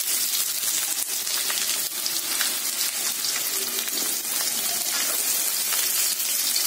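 Sliced spring onions sizzling steadily in a tablespoon of hot oil in a steel kadhai.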